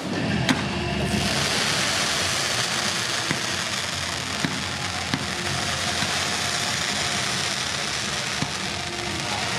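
Fireworks: a sharp bang at the start, then a dense, steady hiss of bursting fireworks with a few sharp pops scattered through it.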